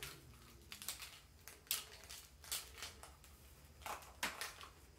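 Plastic bead segments of a jump rope clicking and rattling as it is handled and laid down on a table: a few scattered, irregular clicks and rustles.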